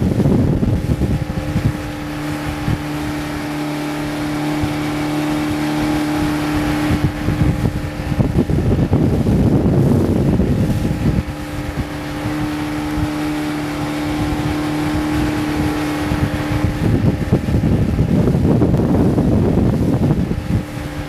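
Ski tow boat's engine running at a steady speed, with water rushing past. Gusts of wind buffet the microphone near the start, about halfway through, and near the end.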